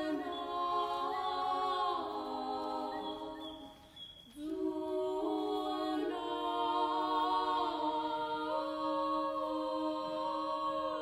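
Women's vocal ensemble singing a cappella in several-part harmony: long held chords that shift together every couple of seconds, with a brief pause about four seconds in before the voices come back in.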